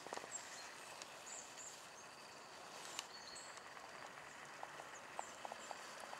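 Faint outdoor ambience with scattered short, high bird chirps and a few soft clicks.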